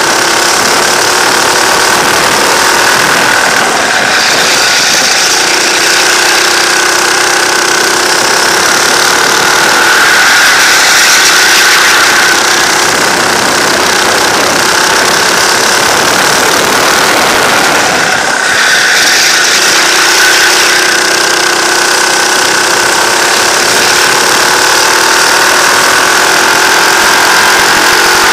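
Go-kart engine heard from on board the kart, running hard through a racing lap, its note rising and falling with the throttle. The revs drop briefly about four seconds in and again a little past halfway.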